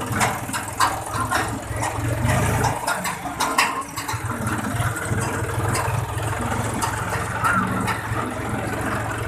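John Deere tractor's diesel engine running steadily while the tractor drives along, with a run of rattling clicks over the first four seconds.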